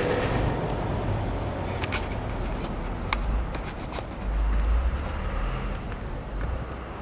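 Outdoor street ambience with a steady low vehicle rumble and a few faint clicks; the low rumble swells briefly a little past the middle.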